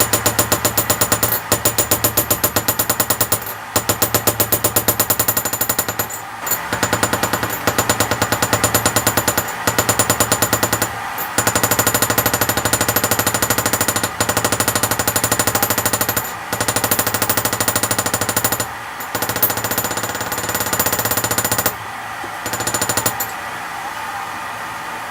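Powered hammer striking steel plate in rapid, evenly spaced blows, in runs of a few seconds with short pauses, over a steady motor hum. The blows stop near the end while the hum runs on.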